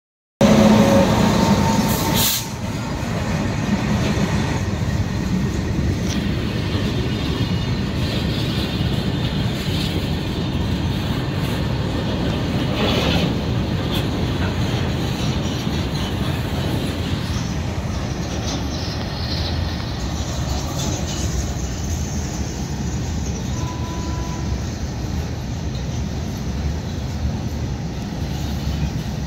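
A freight train rolling past close by: a long string of open hopper wagons running over the rails with a steady, continuous wheel-and-rail noise. It is loudest in the first two seconds as the electric locomotive goes by.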